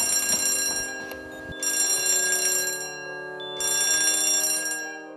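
Fire alarm bell ringing in three bursts of about a second and a half each, with short gaps between them, over sustained background music.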